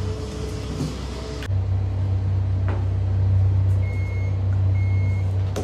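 A steady low rumble that drops out briefly and comes back about a second and a half in. Short high electronic beeps repeat about once a second from about four seconds in.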